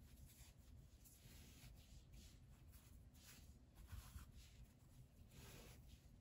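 Very faint rustling and swishing of yarn strands handled and pulled as crocheted vines are knotted together, with a slightly stronger rustle near the end; otherwise near silence.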